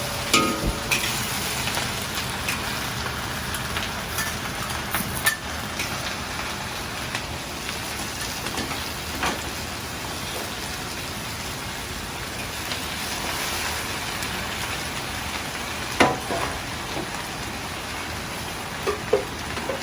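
Steady hiss of food sizzling as it fries in oil. Now and then a sharp clink of a utensil sounds over it, the loudest about sixteen seconds in.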